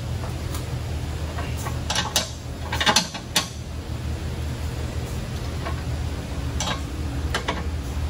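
A metal wrench clinking and scraping on a car's rear suspension alignment adjustment bolt, in scattered metallic clicks that are busiest between about two and three and a half seconds in, over a steady low hum.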